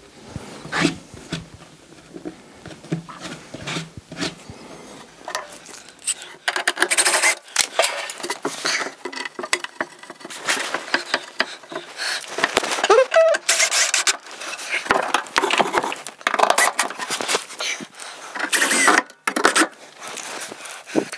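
Irregular rubbing, scraping and knocking of wooden and plastic parts being handled and fitted by hand: light clicks at first, then busier and louder handling noise from about six seconds in.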